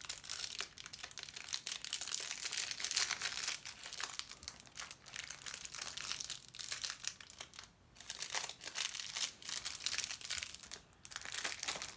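Thin clear plastic wrapper crinkling as small eraser toy pieces are pushed back inside it, with a couple of brief lulls.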